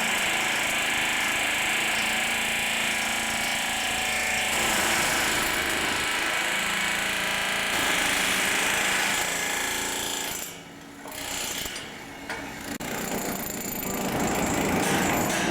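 A power tool working on a thermite-welded tram rail runs steadily, with two short breaks about two-thirds of the way through before it starts again.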